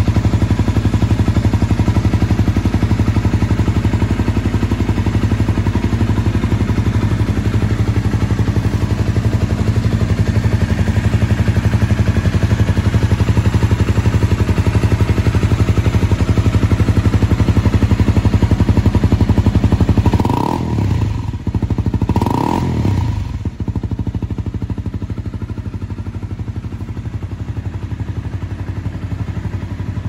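Honda CBR250R's single-cylinder engine idling through an aftermarket Moriwaki silencer. It is blipped twice, about twenty seconds in and two seconds later, each rev rising and falling back, then it settles to idle and fades near the end.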